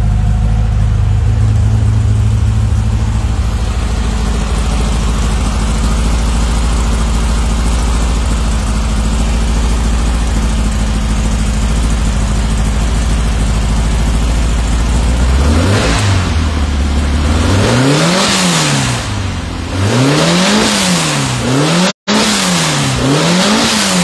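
Freshly built 2332cc air-cooled VW flat-four with twin Weber carburettors idling steadily, then from about two-thirds in revved by hand in several short blips, the pitch rising and falling each time.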